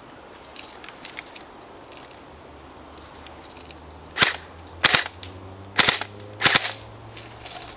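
Double Eagle Krinkov airsoft electric rifle firing four short bursts in quick succession, starting about four seconds in.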